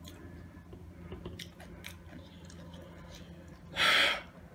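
A person chewing Doritos nachos with soft, scattered mouth clicks, picked from a glass dish by hand. About four seconds in comes a short, loud rush of noise lasting about half a second.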